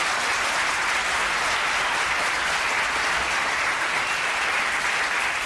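A theatre audience applauding steadily.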